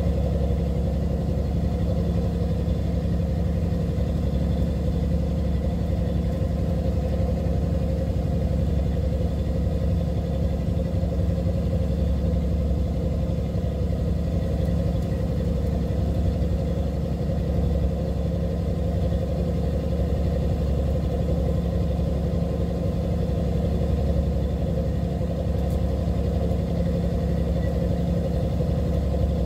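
Fishing boat's engine running steadily: an even low drone with a few faint steady whines above it.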